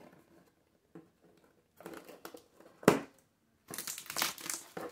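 Metallic curling ribbon crinkling and rustling as it is pulled off a cardboard box, with one sharp click about three seconds in. The crinkling is loudest near the end.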